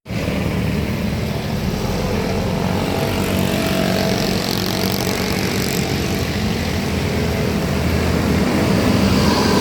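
A vehicle engine runs steadily with road and wind noise, making a continuous low drone with no horn.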